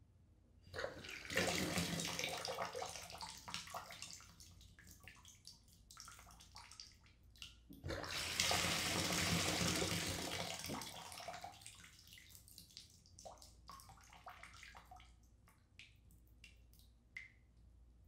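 Water rushing from a bathtub spout into the tub in two runs, starting about a second in and again near the middle, each dying away as the single-handle valve is worked, then dripping and trickling.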